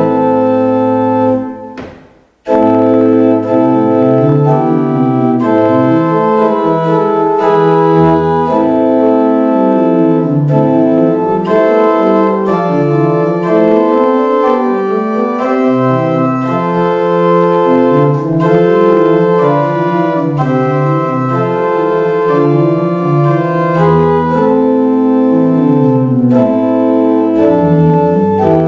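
Pipe organ playing a sustained, several-voiced piece over a moving bass line. The sound fades away about a second and a half in and comes back abruptly a moment later.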